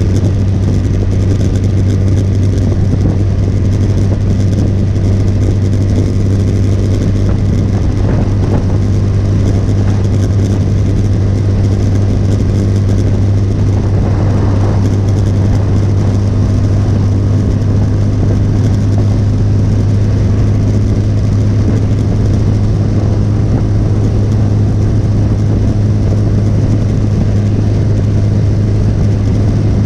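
Motorcycle engine running at a steady cruising speed, a constant low drone that neither rises nor falls, mixed with wind and road noise.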